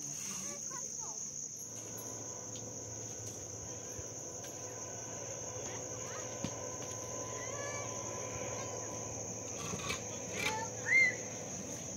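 Steady high-pitched insect chorus, a continuous trill, over a faint low hum, with a short rising chirp near the end.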